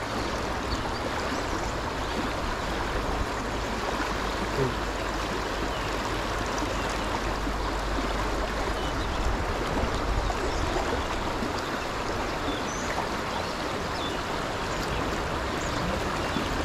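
Fast, rocky mountain stream rushing steadily over rocks.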